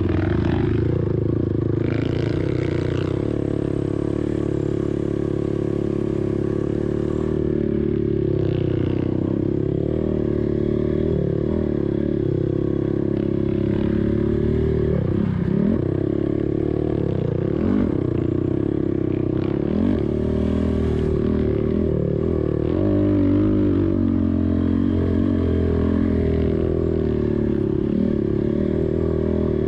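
Engine of a 2007 Honda TRX450ER quad, a single-cylinder four-stroke, running steadily under load through sand. Its pitch drops and climbs again a few times partway through as the throttle is eased off and reopened.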